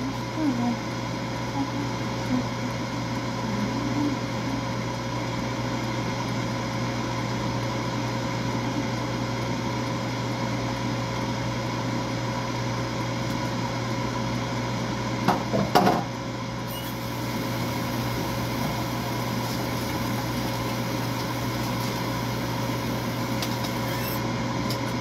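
Countertop air fryer running: a steady fan hum with a low drone and a couple of faint steady tones. A brief clatter of knocks comes about two-thirds of the way through.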